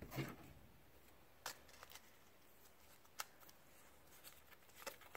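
Near silence with a few faint, short clicks and rustles of plastic card toploaders being handled.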